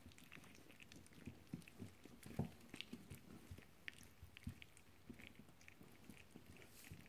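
Several young puppies licking and nibbling at a person's bare palm: faint wet smacking and lapping clicks at irregular intervals.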